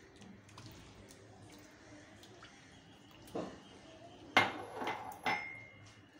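Wooden spatula stirring a watery potato curry in a granite-coated pot, with faint wet stirring sounds. Then come a few sharp knocks of the spatula against the pot, from about three and a half to five seconds in. The loudest knocks leave the pot ringing briefly.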